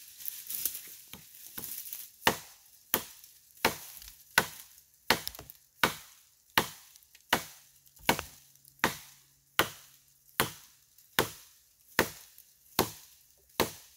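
A tool strikes wood in a steady rhythm during a tree felling: after a few light knocks, about sixteen hard blows come one every three-quarters of a second, starting about two seconds in.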